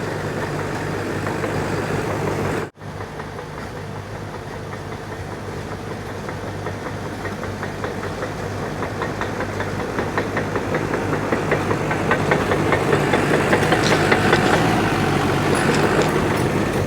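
Old CAT D5 bulldozer's diesel engine running as it works dirt, with a rapid clatter that grows louder through the second half. The sound cuts out for an instant about three seconds in.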